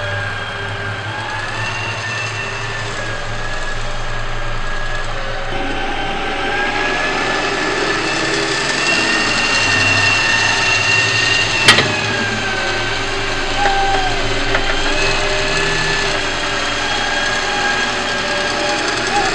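Huina RC excavator's small electric motors and gearboxes whining as it runs on its tracks, the pitch shifting slightly as the motors change speed. One sharp click about twelve seconds in.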